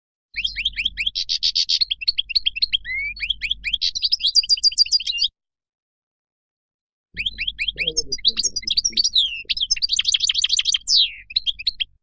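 European goldfinch singing its wild song: two phrases of rapid twittering with fast trills and quick sliding notes, separated by a pause of about two seconds.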